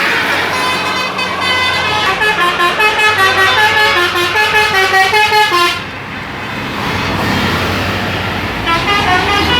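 Bus telolet horn, a multi-tone musical horn, playing a fast tune of stepped notes that breaks off about six seconds in and starts again near the end. A bus engine runs underneath.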